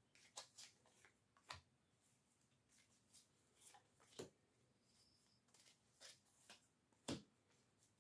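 Oracle cards being handled: faint, scattered soft clicks and flicks of card stock, about nine over several seconds, not a continuous riffle.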